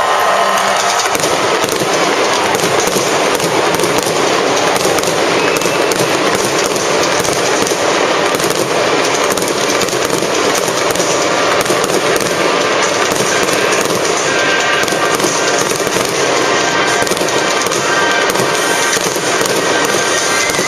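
Fireworks display going off as a dense, continuous barrage of crackling bursts and bangs, with no let-up.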